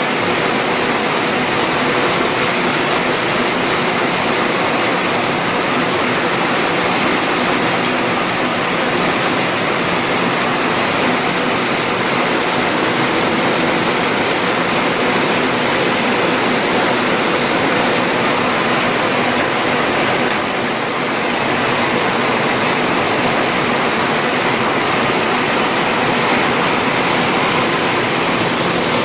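EMS-UT70 automatic express mail envelope forming machine running while it feeds and stacks envelopes: a loud, steady, dense rushing noise with a faint hum underneath, dipping briefly about two-thirds of the way through.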